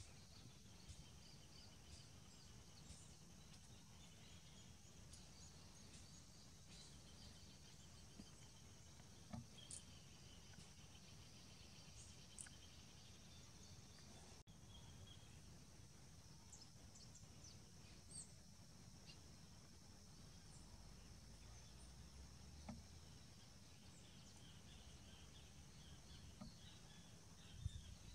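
Faint garden ambience: a steady high-pitched insect trilling with soft, repeated bird chirps, over a low rumble.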